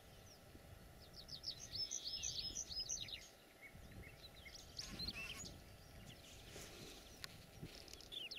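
Small birds chirping and singing faintly over a low outdoor background hiss, with a quick run of repeated high notes about two seconds in.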